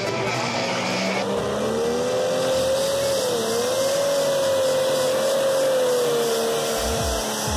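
A Case IH 7250 Light Superstock pulling tractor's turbocharged diesel engine running at high revs under full load as it pulls the sled, its pitch climbing, dipping briefly about halfway and then holding high. Background music fades out about a second in.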